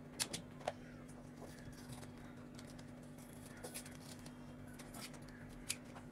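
A few faint, sharp snips and crackles as scissors cut a paper cup and the paper is peeled off a frozen kulfi, over a steady low hum.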